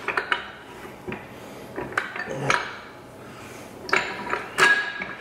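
Metal transfer case parts clinking and knocking as a part is worked into the case: about seven separate sharp clinks, the loudest near the end with a brief metallic ring.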